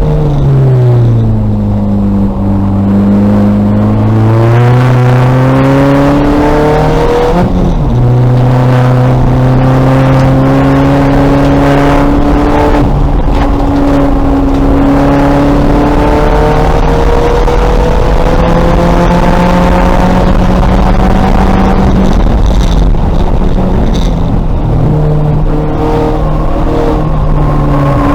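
2000 VW Golf race car's engine working hard on track. The revs fall over the first two seconds, climb, drop sharply at a gear change about seven seconds in, then climb slowly again, with further shifts later on.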